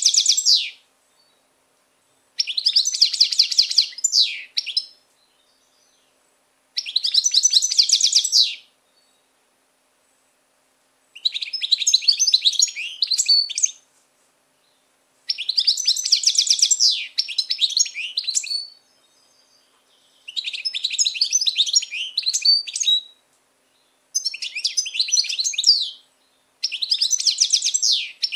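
European goldfinch singing: a run of about eight song phrases, each two to three seconds of fast twittering and trilled notes, with pauses of a second or two between them.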